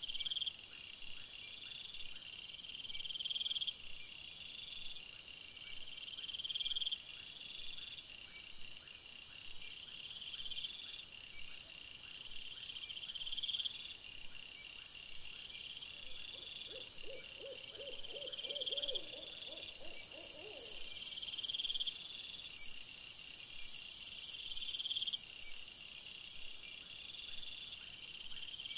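Night chorus of crickets: several insects trilling in repeated chirps at different high pitches. A loud, steady, very high buzz runs for about six seconds from about twenty seconds in, and a short, lower pulsed call sounds a little before it.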